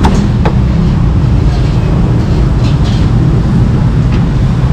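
Steady low rumble of street traffic, with a few sharp knocks: one at the start, one about half a second in, and one near the end.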